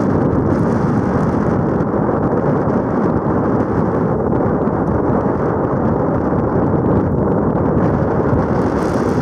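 Strong wind blowing across the microphone: a loud, steady low rush with no break.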